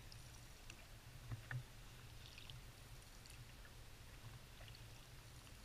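Faint sounds of a canoe being paddled on a river: a quiet low hum with a couple of soft taps about a second and a half in.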